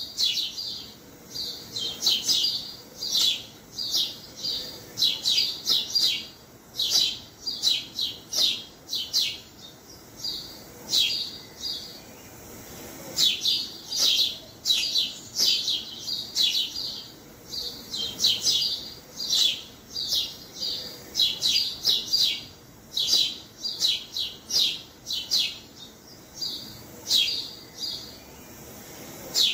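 Sparrows chirping: short, high chirps in quick clusters, with a few brief lulls.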